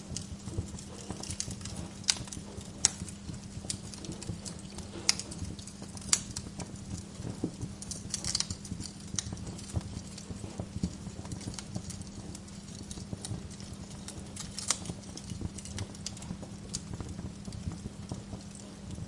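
Wood fire burning in a fireplace, crackling steadily over a low hum, with sharp pops of splitting wood at irregular moments, a few louder than the rest.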